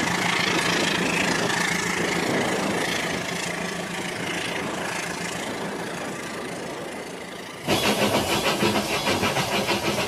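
Toy trains running on plastic track: a steady small-motor whir with a low hum that slowly fades as one train moves off. About three-quarters of the way in, a sudden louder rhythmic clacking, about three a second, as another toy train passes close over the track joints.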